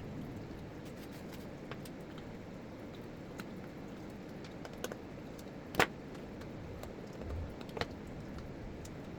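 Scattered light clicks and taps of a disassembled blender's parts being handled. The loudest is a sharp click about six seconds in, with another click near the end and a soft low bump just before it.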